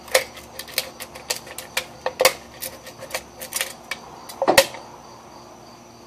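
A hand tool cutting the end out of an aluminium drink can: a run of sharp, irregular clicks at a few per second, with one louder snap about four and a half seconds in. This cut is the kind that leaves a small burr on the rim.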